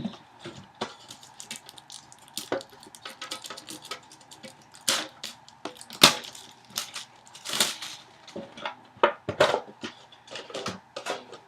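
Trading-card foil packs and packaging being handled: irregular crinkling, rustling and clicks, some sharper and louder than others.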